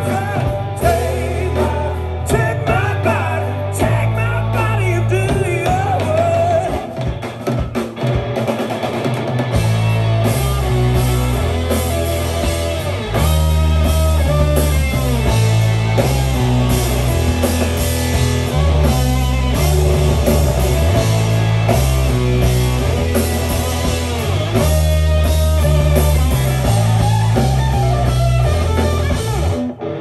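A rock band playing live: electric guitar over bass and a drum kit.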